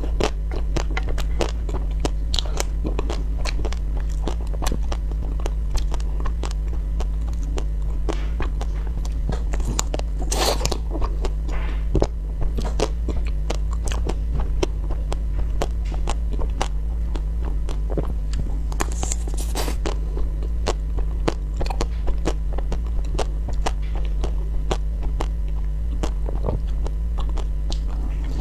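Close-up biting and chewing of a frozen ice cream bar with a crunchy pink coating: a dense run of small crunches and crackles, with a steady low hum underneath.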